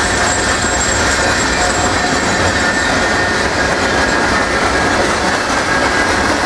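Freight cars of a mixed manifest train, mainly loaded gondolas, rolling past close by. A steady, loud rumble and rattle of steel wheels on rail, with a thin, high, steady squeal of wheels over it.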